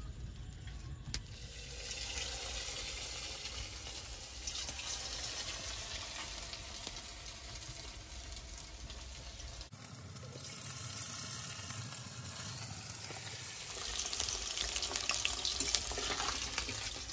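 Batter-coated chicken pieces deep-frying in hot oil in a steel kadai over a wood fire: a steady sizzling hiss, louder near the end.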